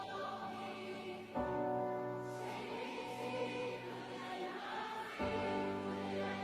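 Choir singing a slow worship song with held notes, new chords coming in about a second and a half in and again near the end.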